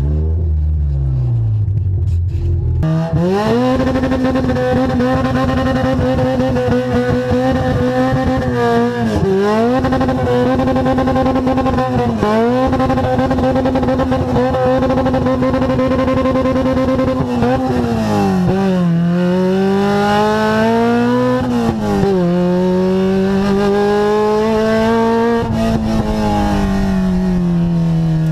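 Toyota AE86 Trueno's engine heard from inside the cabin. It runs low for about three seconds, then jumps to high revs and is held there for several seconds at a time with brief dips. Near the end the revs rise and fall repeatedly as the car is driven hard.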